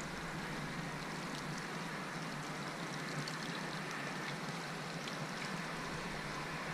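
Boat under way on a river: a steady rush of water along the hull over a constant low engine hum, with faint scattered splashes.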